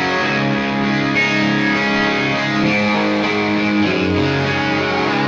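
Electric guitar playing a live song intro: sustained, ringing chords that change about every second and a half, with no singing.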